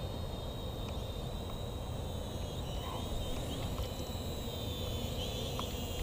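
Eachine E58 mini quadcopter's motors and propellers whining steadily at a distance, the pitch wavering slightly as the drone holds against the wind, over a low wind rumble on the microphone.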